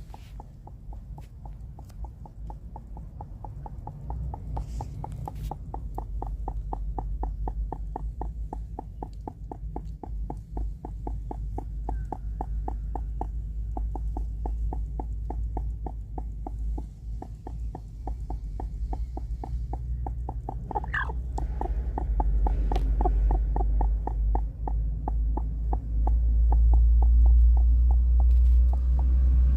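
Broody hen clucking in a long, rapid, even run of low clucks, with a brief higher call about two-thirds of the way through. A low rumble underneath grows louder toward the end.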